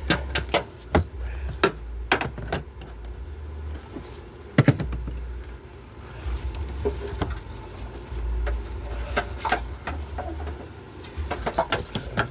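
Scattered clicks and metallic knocks of hand work in a car's engine bay, as the serpentine belt and tools are handled, with one sharp knock about four and a half seconds in. A low rumble runs underneath.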